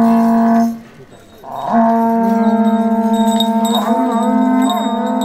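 Yamabushi conch-shell trumpets (horagai) blowing long, steady notes. One note stops about a second in; after a short gap two conches sound together at slightly different pitches, with the pitch wavering briefly near the end.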